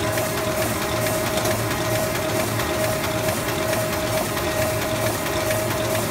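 Ryobi 524HXX sheetfed offset printing press running at speed, its feeder head lifting and feeding sheets off the pile. It makes a steady mechanical hum with a regular beat about twice a second, a press in normal production with proper sheet separation.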